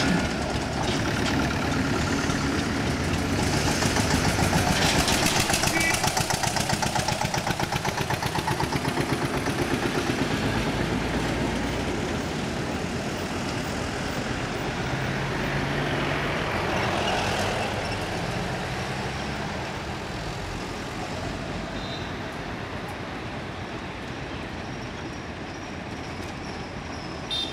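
Road traffic going past on a highway: the engines and tyres of heavy vehicles and cars, swelling as each one passes. The loudest pass comes from about four to ten seconds in, with a quick pulsing engine note, and a smaller one comes around seventeen seconds in.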